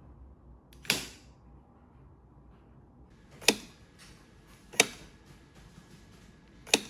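Four sharp clicks of a wall light switch being toggled by a switch-pushing finger robot's lever arm, spaced one to two and a half seconds apart.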